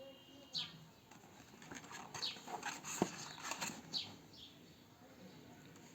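Bird chirps, a few short falling calls, over a spell of rustling and clicking from something being handled, with one sharp click about three seconds in.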